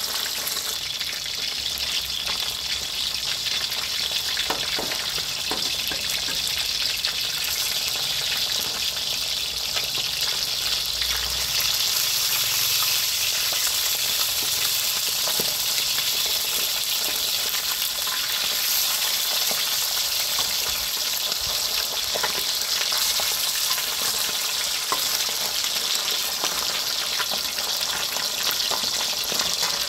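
Salted silver barb deep-frying in oil in a steel wok: a steady sizzle, with a few light clicks and scrapes of a metal ladle turning the fish.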